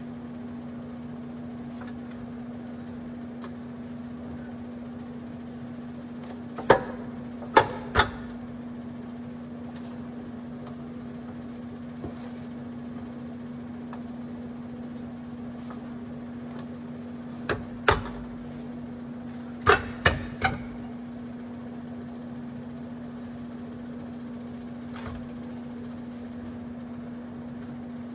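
Sharp knocks from tools and parts during reassembly of a car's front subframe and suspension, coming in small groups of two or three, over a steady low hum.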